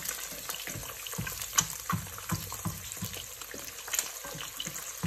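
Eggs frying in hot oil in a pan: a steady sizzling hiss with many sharp crackles and pops of spattering fat.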